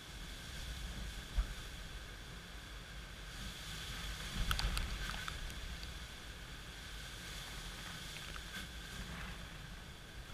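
Gusty wind and rain ahead of an approaching hurricane: the wind rumbles on the microphone over a steady hiss. A single thump comes about a second and a half in, and about four and a half seconds in a stronger gust brings a cluster of sharp ticks.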